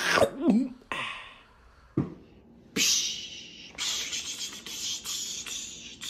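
A man making breathy mouth noises, beatbox-like: a short vocal sound, a puff and a click, then long hissing blasts of breath from about three seconds in.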